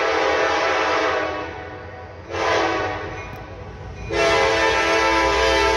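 Diesel freight locomotive's air horn sounding its chord in blasts: one fading out about a second in, a short blast just after two seconds, and a long blast from about four seconds in, the closing long–short–long of the standard grade-crossing signal. A low rumble from the approaching train builds near the end.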